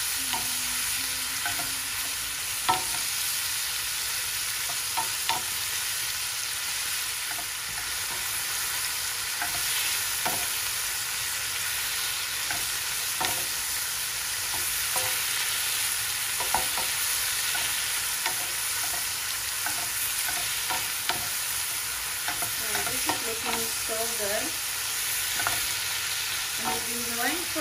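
Shrimp, sliced peppers and carrots sizzling in oil in a frying pan, a steady hiss, with a wooden spatula knocking and scraping against the pan now and then as the mix is stirred.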